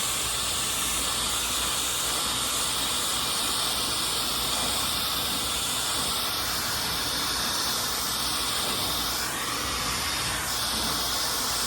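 Yoole Plasma high-speed hair dryer running: a steady rush of blown air with a faint high-pitched motor whine above it.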